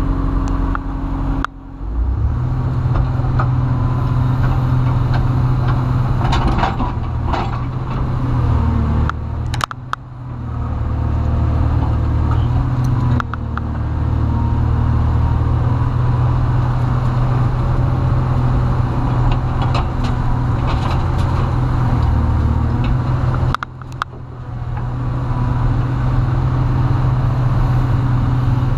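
Komatsu PC300 excavator's diesel engine running steadily under hydraulic load as the machine digs and swings, heard from inside the cab, dipping briefly three times. Scattered short knocks and clunks.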